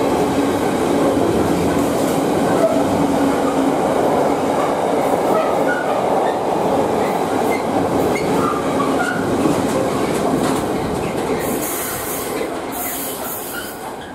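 Container freight train's flat wagons passing close by, wheels rumbling steadily on the rails. The sound fades over the last few seconds as the end of the train draws away.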